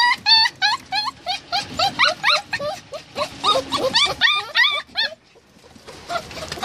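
A litter of Samoyed–Siberian Husky puppies whining and yelping together in quick, high calls that bend up and down, several a second, with a short lull about five seconds in.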